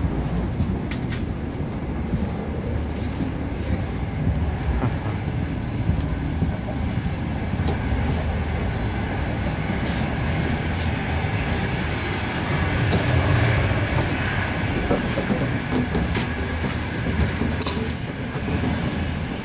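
Running noise of an Italo AGV high-speed train heard from inside the carriages and the vestibule between them: a steady rumble and rush, with scattered light clicks and knocks.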